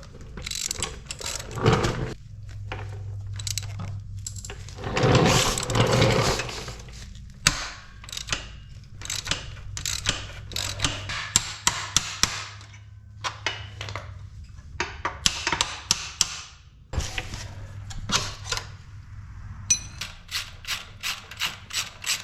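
Ratchet wrench clicking and metal tools clinking and knocking as the engine mounting bolts of a 1981 Honda CB650 are loosened, with runs of rapid clicks from the ratchet.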